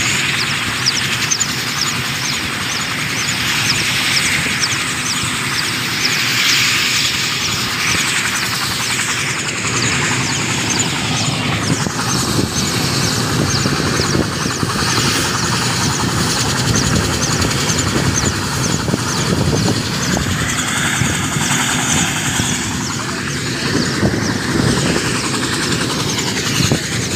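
Helicopter running, a loud steady whir with a fast, even beat from the rotor.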